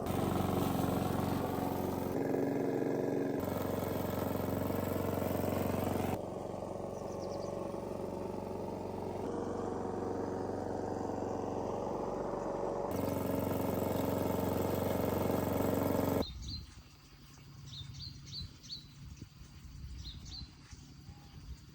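Lawn mower engine running steadily, its sound changing abruptly several times; about sixteen seconds in it gives way to quieter background with short bird chirps.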